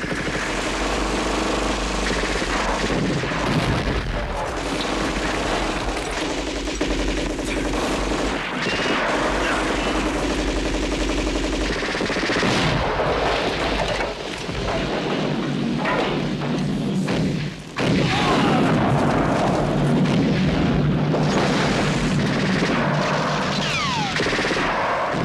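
Movie shoot-out soundtrack: almost continuous gunfire, with machine-gun bursts and booms layered over steady low sound.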